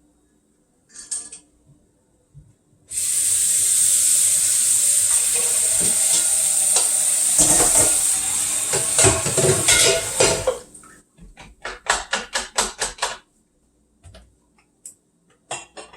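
Kitchen work while an egg is prepared. A steady hiss starts suddenly a few seconds in and runs for about seven seconds, with utensils clinking against a pan. Then comes a quick run of light taps, about five or six a second.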